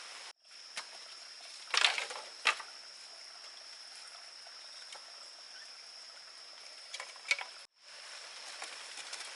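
Outdoor forest ambience: a steady high-pitched drone over a constant hiss, with a few short knocks and rustles about two seconds in and again near seven seconds. The sound cuts out completely twice for a moment.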